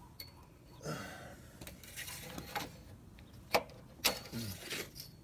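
Scattered light metallic clicks and clinks from handling the engine oil dipstick in a Humvee's engine bay while checking the oil level, with a short rustle about a second in and two sharper clicks about three and a half and four seconds in.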